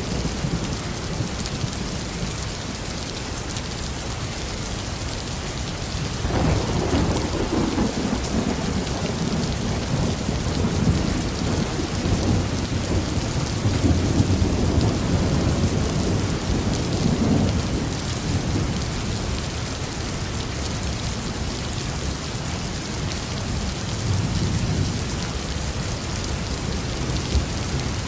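Heavy rain falling steadily with a roll of thunder. The thunder starts about six seconds in, rumbles and swells for around twelve seconds, and a fainter rumble comes near the end.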